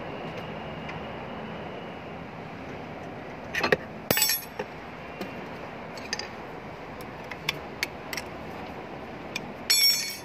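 Metal clinks and clanks of tools and a brake caliper being handled: a few sharp clinks about four seconds in, light ticks after, and a ringing clank near the end, over a steady background hum.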